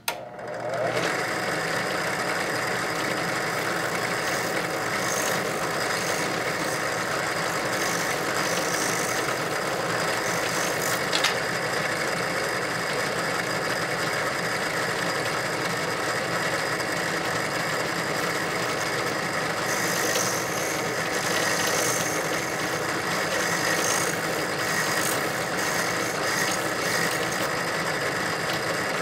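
Small Grizzly benchtop drill press switched on and running steadily at its fastest belt speed, spinning a flap wheel in its chuck. A few brief hissy flares come near the middle and in the last third.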